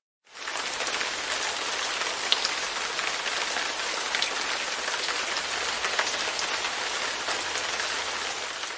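Light rain falling steadily on a window pane, an even patter with a few separate drop ticks standing out. It swells in from silence just after the start and begins to fade away near the end.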